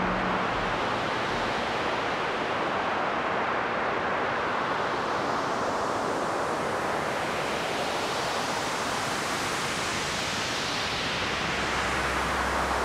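A dense wash of hissing noise from a drone/ambient music track, its brightness slowly swelling up and falling back like a filter sweep, so it sounds much like surf. A low hum comes in near the end.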